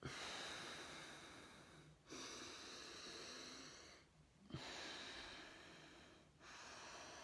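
Faint alternate-nostril breathing (anulom vilom): slow, even breaths of air drawn in and pushed out through one nostril while the other is held shut with a finger. There are about four breaths of roughly two seconds each with short pauses between them, and a small click about halfway through.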